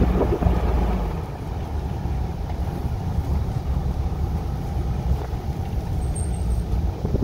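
Engine and road rumble of an RV driving slowly, heard from inside the cab: a steady low rumble, a little louder for about the first second.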